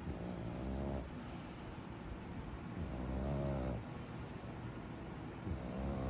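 A sleeper snoring steadily: three buzzing snores, each about a second long, coming every two and a half to three seconds.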